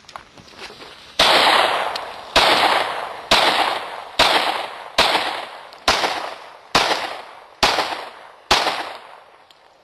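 Handgun fired nine times in steady succession, about one shot a second, each shot loud and sharp and fading away before the next.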